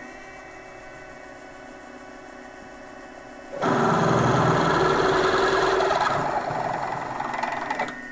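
Mini mill's spindle motor running with a steady whine, then, about three and a half seconds in, a twist drill biting into the metal plate with a loud, rough cutting noise as it enlarges a pilot hole one drill size up. The cutting noise eases near the end as the bit breaks through into the wooden backing board beneath.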